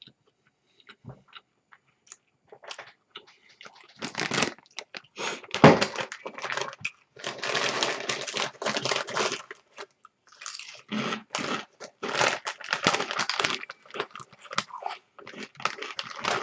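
Crinkling of a plastic chip bag being handled, mixed with crunching as chips are eaten, in bursts starting about four seconds in.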